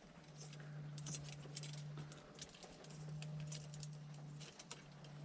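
Faint, scattered clinks and ticks of small metal hardware being handled, over a low steady hum.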